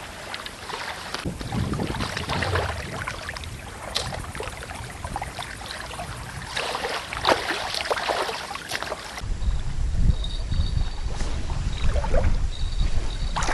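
River water lapping and splashing at the bank with small handling knocks, then wind rumbling on the microphone in the last few seconds.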